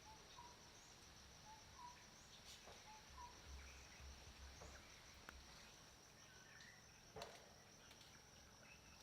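Faint forest ambience: a steady high-pitched insect drone, with a few short bird chirps scattered through it and one sharp click late on.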